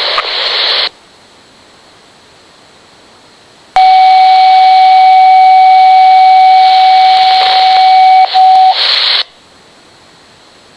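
RadioShack Pro-97 police scanner receiving radio traffic. A burst of static ends about a second in. A few seconds later a transmission opens with a loud, steady single-pitch tone over hiss that holds for about four and a half seconds, breaks off, sounds again briefly and ends in a short burst of static.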